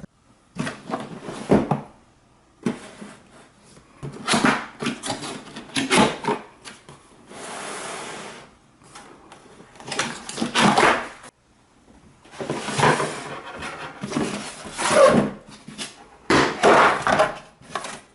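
Irregular handling noises: bursts of rustling and scraping with knocks and clicks, as parts and packaging of a cordless stick vacuum are moved about. A short steady hiss of about a second comes near the middle.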